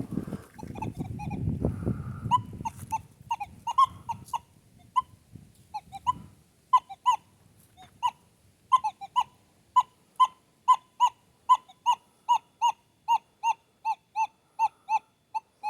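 Metal detector sounding on a buried target: short mid-pitched beeps, scattered at first, then repeating steadily about two to three times a second. Low rustling and handling noise runs under the first six seconds.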